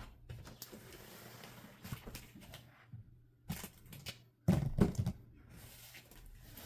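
A heavy boxed sewing machine being handled: cardboard rustling, scraping and clicking, with a pair of loud heavy thumps about four and a half seconds in.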